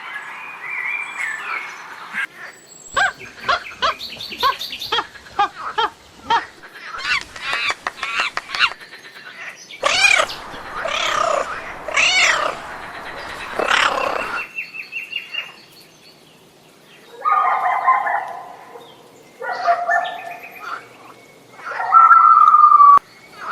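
Farm animal calls from a series of short clips, one after another: pitched cries, some rising and falling, changing abruptly every few seconds.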